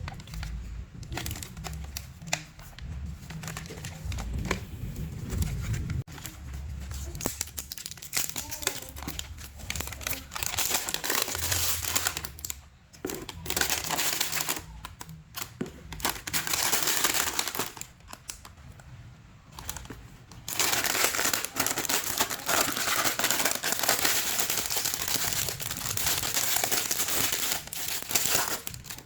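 Hands squishing and stretching slime, making dense crackling, popping clicks that grow busier and louder from about two-thirds of the way in.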